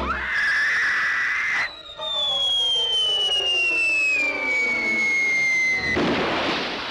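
Cartoon falling sound effects: a shrill tone rises and holds briefly, then a long descending whistle slides down for about four seconds as the character drops, ending about six seconds in with a big water splash.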